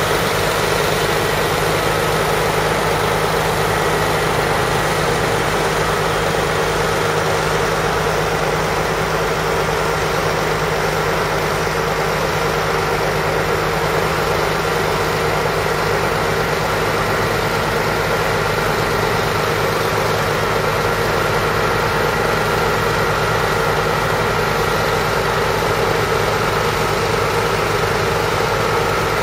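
A crane's engine running at a steady idle while it holds a sculpture on its hook cable.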